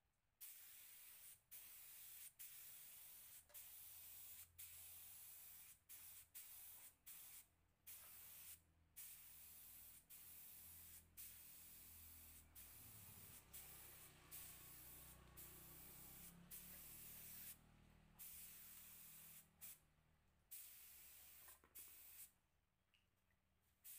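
Compressed-air spray gun spraying wood finish onto teak boards, hissing in repeated bursts of a second or two each, broken by short pauses as the trigger is let off.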